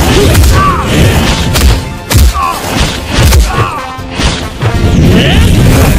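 Loud action music with a few sharp crashing hit effects, the strongest about two seconds in and again a little after three seconds.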